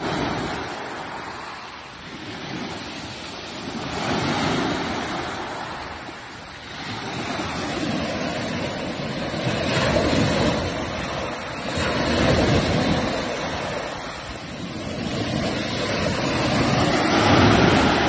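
Ocean surf breaking and washing up the shore, swelling and easing every few seconds.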